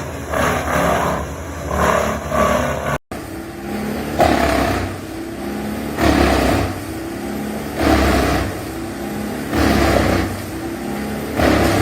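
Large wood chipper running steadily, with loud surges about every two seconds as material goes through the machine. The sound drops out for an instant about three seconds in.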